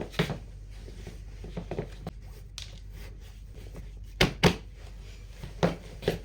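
Handling noises in a small room: scattered light knocks, with two sharp knocks close together about four seconds in and another about a second later.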